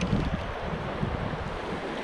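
Steady rush of creek water flowing over riffles, with wind buffeting the microphone in a low fluttering rumble.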